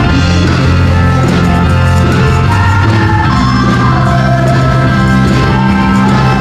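Live praise and worship music: a group of women singing into microphones over a loud amplified band with a steady bass line, played in the key of F.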